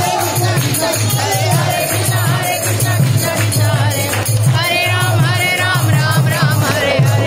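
Devotional kirtan music: voices singing over a steady drum beat of about two strokes a second, with jingling percussion.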